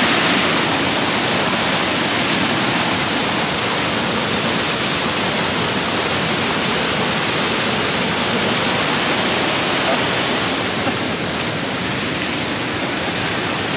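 Waterfall and stream rushing, a loud steady hiss of falling water with no breaks.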